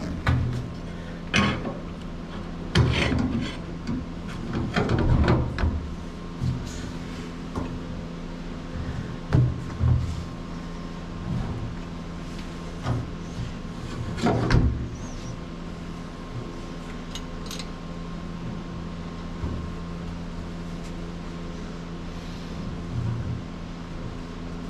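A Rotax marine engine hanging from a chain hoist is shoved and shifted by hand on its metal motor mounts inside an aluminum boat hull: scattered clunks, knocks and scraping, loudest around three seconds in and again near the middle. A steady low hum runs underneath.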